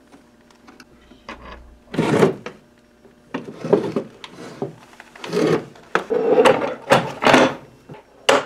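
Wooden case parts of an old pump organ knocking and scraping in a series of short bursts as a side panel is worked loose and lifted off, with a sharp tap near the end.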